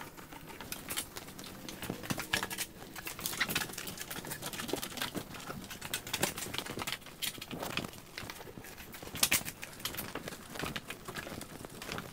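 Soapy car wash mitt wiped lightly over car paintwork, making soft, irregular wet squishing and rubbing sounds.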